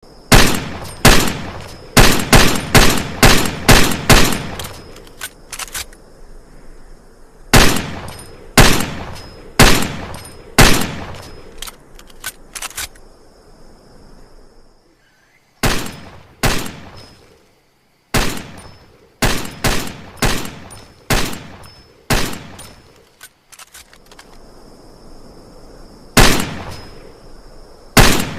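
Desert Eagle pistol firing, shot after shot in groups: a quick run of about seven shots at first, then slower groups about a second apart, each a sharp bang with a short echoing tail, with lighter clicks between the groups.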